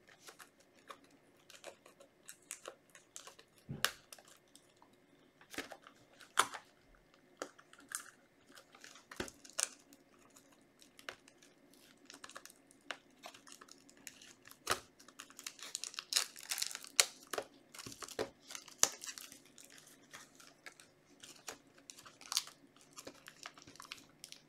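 Plastic and cardboard booster-box packaging being torn open and crinkled by hand: scattered short crackles and rustles, busiest about two thirds of the way through.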